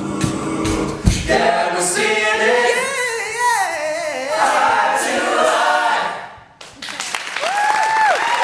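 Male a cappella group singing the last chord of a song, with a lead voice sliding through a vocal run over the group's harmony. The singing stops about six seconds in, and audience applause and cheering break out a second later.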